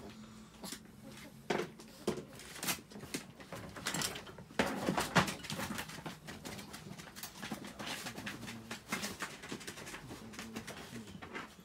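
Irregular clatter and knocks of wire dog crates being handled as a person moves about among them, with a longer, louder rattle about five seconds in.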